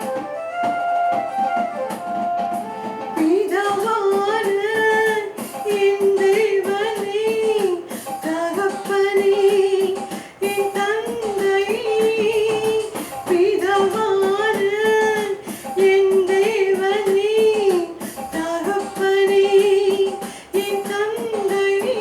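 Christian worship song: instruments play a short lead-in, then a singer comes in about three seconds in, holding long notes with vibrato over a steady beat.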